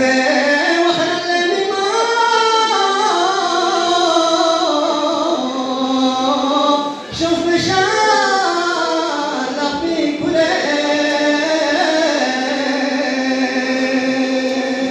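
A single voice chanting a marsiya, a Shia mourning elegy, with no accompaniment, in long held melodic lines. The singing breaks off briefly about seven seconds in and again about ten seconds in.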